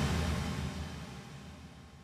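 Tail of an editing sound effect, a sudden deep musical hit, fading away steadily over about two seconds.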